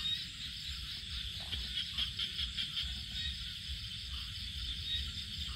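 Night chorus of frogs calling together with insects, a steady run of rapid, high pulsing calls.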